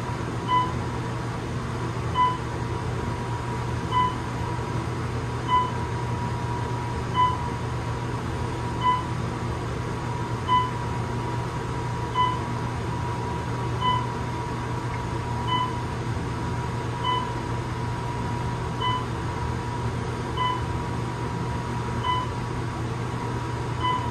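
Elevator car descending steadily with a low hum and a thin steady whine. A short beep sounds as each floor is passed, about every one and a half seconds.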